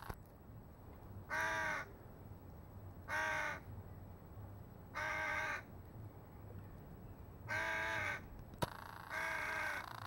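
Hooded crow cawing: five harsh caws spaced about two seconds apart, each lasting about half a second. A single sharp click falls between the last two caws.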